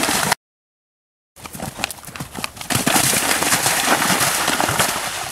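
Horse cantering through a shallow pond, hooves splashing and striking through the water in a loud, continuous spray of splashes. The sound drops out completely for about a second near the start.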